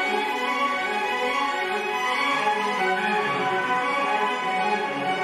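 Background music played on bowed strings, violin and cello, with long held notes at a steady level.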